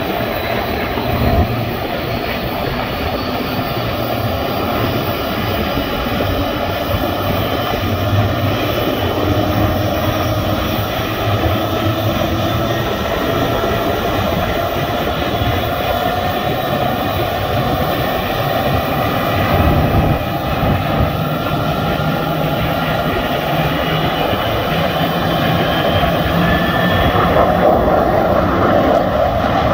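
F-35 jet engines running during start-up: a steady jet roar with whining tones that slowly rise in pitch as the engines spool. Near the end the noise swells as a pair of jets flies past overhead.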